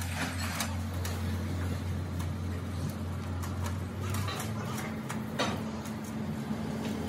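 A steady low machine hum, with a few scattered light metallic clicks and one sharper knock near the end as hands work a bearing collar on a splined gearbox main shaft.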